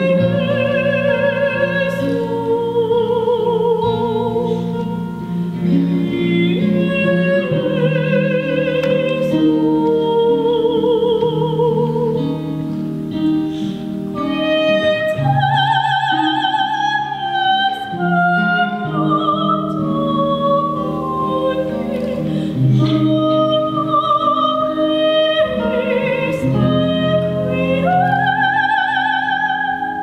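A young woman singing a classical-style solo melody with vibrato, held notes and gliding phrases, over sustained lower accompaniment chords.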